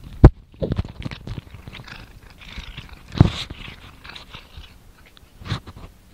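Norwegian Forest Cat biting and chewing blades of cat oat grass close to the microphone: irregular crunching and rustling, with a few sharp knocks a moment in, about three seconds in and near the end.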